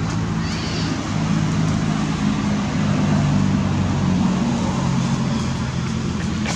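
A motor vehicle engine running steadily: a constant low hum with a wash of noise over it.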